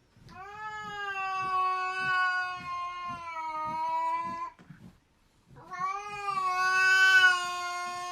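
Domestic cat giving two long, drawn-out yowls, each about four seconds and held at a steady pitch, with a short pause between them; the second is louder toward its end.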